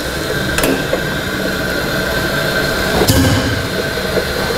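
Pneumatic ATEX drum tipper's air-driven hydraulic power unit running steadily with a hiss as it lowers a clamped 220-litre plastic drum. Two short sharp sounds cut in, about half a second in and about three seconds in.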